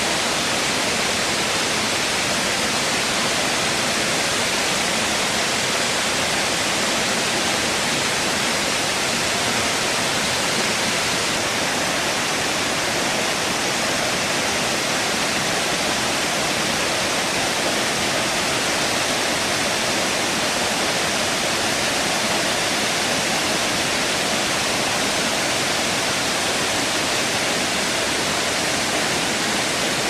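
Steady, unbroken rushing of the Kravica waterfall on the Trebižat river, many streams of water pouring over tufa cascades into the pool below.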